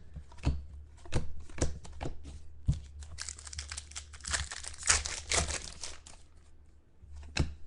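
Trading-card pack wrapper crinkling and tearing as a pack is opened: a run of sharp, irregular crackles, busiest in the middle.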